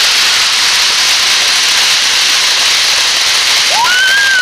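Ground fountain firework spraying sparks with a loud, steady hiss, and a whistle that rises and falls near the end.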